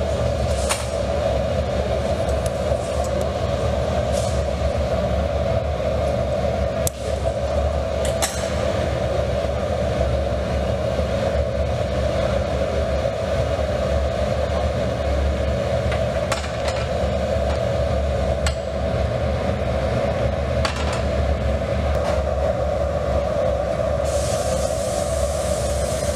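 Steady mechanical drone of the glassworks furnace and its blower running, with a few sharp clinks of metal tools on the steel bench.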